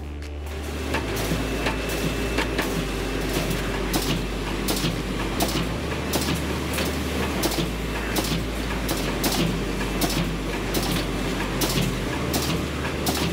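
Mechanical clatter of a veneer-processing line, with sharp clacks in a steady rhythm of about three a second. Under it runs a low drone that shifts pitch every second or two, most likely the bass of a background music track.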